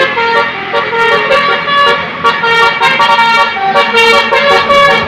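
Bus 'telolet' multi-tone horn (Basuri type) playing a quick melody: loud pitched horn notes stepping up and down in pitch, one after another.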